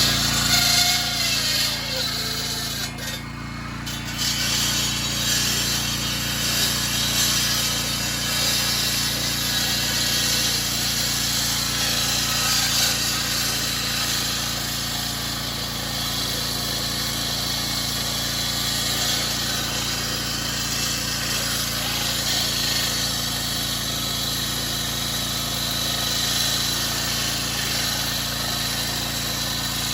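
Electric 16-inch concrete saw running steadily, its blade grinding through a concrete slab.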